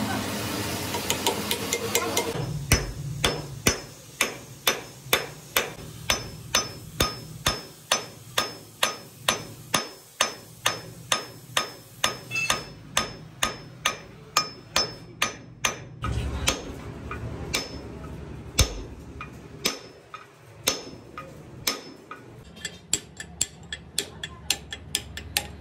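Steel hammer striking the universal-joint yoke of a truck drive shaft, metal on metal, at times through a punch held against the yoke. The blows come evenly at about two a second, then more scattered, then a quick run of lighter taps near the end.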